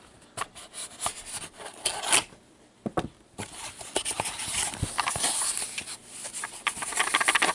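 Cardboard trading-card box being handled and pried open with cotton-gloved hands: cardboard rubbing and scraping against the gloves, with scattered sharp clicks and taps of the flaps.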